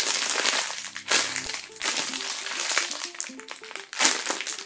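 Crinkly plastic packaging rustling and crackling in irregular bursts as a packaged homemade squishy is handled and squeezed, with quiet background music underneath.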